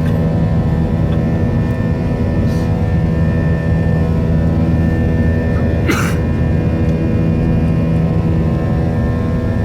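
Airliner's jet engines running steadily, heard from inside the passenger cabin as a loud even hum with a stack of steady whining tones. A brief sharp noise cuts across it about six seconds in.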